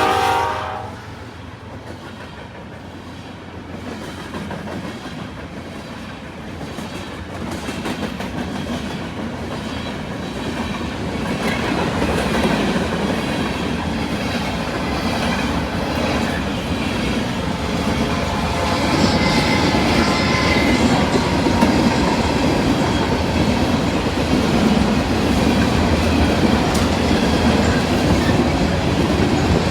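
BNSF freight train passing at a railroad crossing: steady rumble and clickety-clack of wheels over the rails, growing louder over the first dozen seconds and then holding. The locomotive's horn cuts off just at the start.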